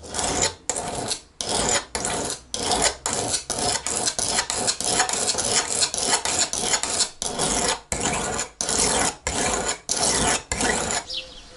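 Steel kitchen knife being sharpened on a round sharpening stone: the blade rasps across the stone in quick, even strokes, about two a second.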